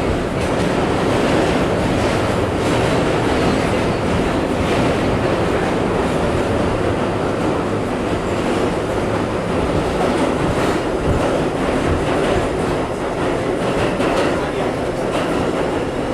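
R32 subway car running along the track, heard from inside the car: a steady rumble and rush of wheels on rail, with faint clicks over the rail joints.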